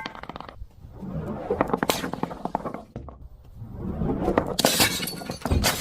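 Brittle objects being crushed and breaking in two long crunching passes of dense crackles, with sharp breaking crashes about two seconds in and near the end.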